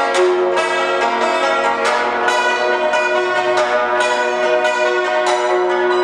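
Yangqin (Chinese hammered dulcimer) played solo: hammers striking metal strings in a quick run of notes, each ringing on and overlapping the next with a bell-like sound.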